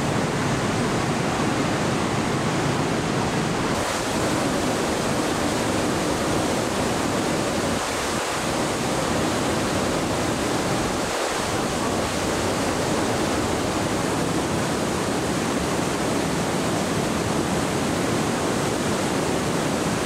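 Trümmelbach Falls, glacier meltwater plunging through rock gorges inside the mountain: a steady, unbroken rush of falling water.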